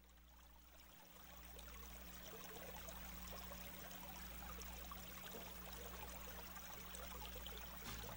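Water trickling and bubbling with a fine fizz, fading in over the first couple of seconds, over a faint steady low hum.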